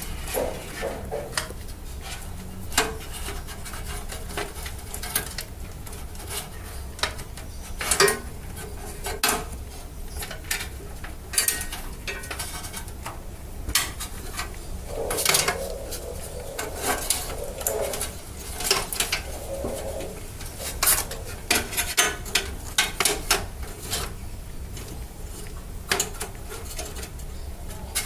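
Irregular clicks, taps and rubbing of spare power-supply cables and their plastic connectors being handled and tucked away inside a computer case, over a low steady hum.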